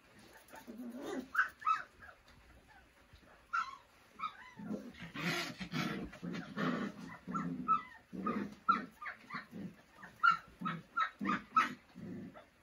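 A litter of month-old Doberman pinscher puppies whining, yipping and growling at play, in a quick run of short high calls that grows busier partway through, with low growls mixed in.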